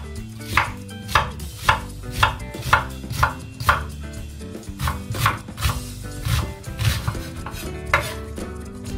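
Kitchen knife chopping an onion on a wooden cutting board, in steady strokes about two a second with a couple of short pauses. Soft background music plays underneath.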